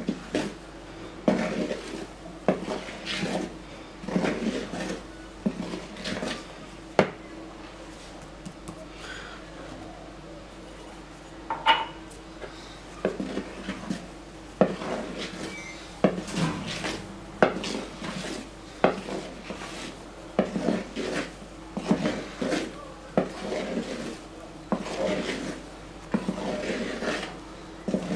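A wooden spoon scrapes and knocks against the side of a bowl while folding flour into thick cake batter, in repeated strokes about once a second. There is a pause of a few seconds in the middle.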